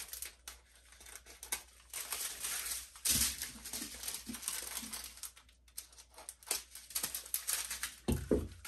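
Strands of small plastic zip bags holding diamond painting drills crinkling and rustling as they are handled, with irregular bursts and small clicks.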